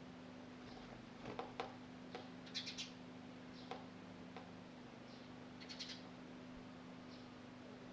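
A bird pecking at its reflection in a mirror: three short clusters of quick sharp taps a few seconds apart, with fainter single ticks between them, over a steady low hum.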